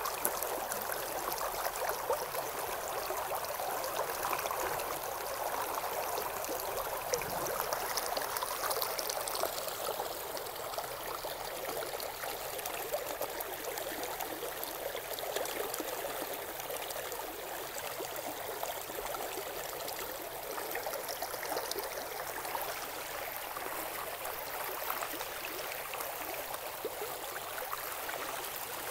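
Shallow stream running over stones, a steady babble of rippling water.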